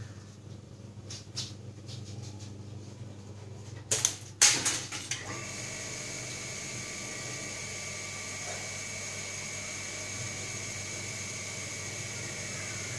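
Two sharp cracks about half a second apart around four seconds in. From about five seconds on, a steady mechanical hum with a high whine.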